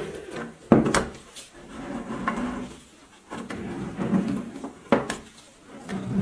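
Parts of an old, rusty grain grinder being handled: a few sharp knocks with rubbing and scraping between them, the loudest knocks about a second in and near five seconds in.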